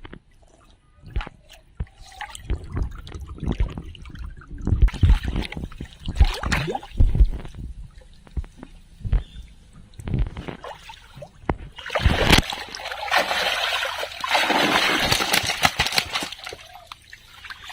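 Pond water splashing and sloshing, with scattered low thumps. About twelve seconds in, a loud rush of spattering, streaming water lasts some four seconds.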